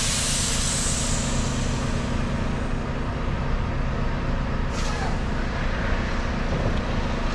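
Semi truck's diesel engine running steadily, heard from inside the cab. Its air brakes let out a loud hiss at the start that fades over a couple of seconds, then a short second hiss about five seconds in.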